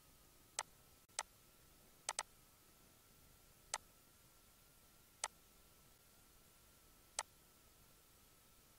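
Computer mouse clicking: seven sharp single clicks at irregular intervals, with a quick double click about two seconds in. Underneath are a faint steady hiss and a thin steady tone.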